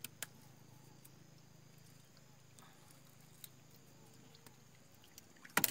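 Sparse knocks and taps on a wooden canoe as a gill net is hauled in by hand, over a faint low hum; a quick cluster of louder knocks comes near the end.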